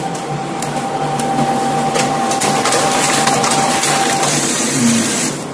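Canon imageRUNNER Advance 6275 copier running a print job, feeding and ejecting paper: a steady mechanical running with a held whine and many quick clicks. The whine drops out about four seconds in.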